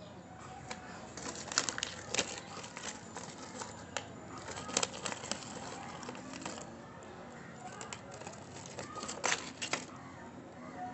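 Orange plastic packet crinkling as it is handled, in a few short bouts of sharp crackles.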